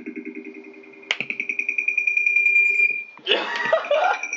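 A sharp strike followed by a long ringing tone that wavers quickly and slowly fades. About a second in there is a second, louder strike with the same ringing. Near the end a short noisy burst cuts across it.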